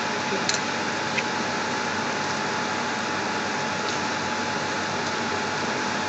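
Onions and ground spices cooking in oil in a stainless steel saucepan, a steady sizzling hiss with a faint constant tone underneath and a couple of faint ticks about a second in.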